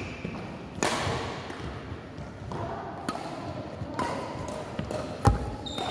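Badminton rally: sharp hits of racket on shuttlecock and thuds of players' footwork, the loudest just after five seconds, with short squeaks of court shoes on the mat.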